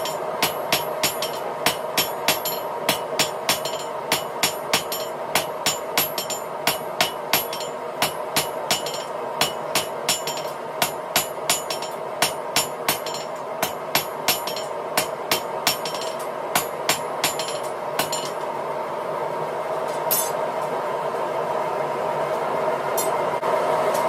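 Hand hammer striking a red-hot steel rod on a steel anvil in a quick, even rhythm of about three blows a second. The blows stop for a few seconds after about 18 s, apart from one lone strike, then start again near the end. A steady hum runs underneath.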